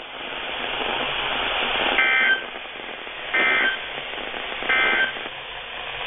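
A Sangean weather alert radio's speaker gives a steady hiss, then three short buzzy EAS SAME data bursts a little over a second apart. The short, evenly spaced bursts are typical of the end-of-message code that closes an alert.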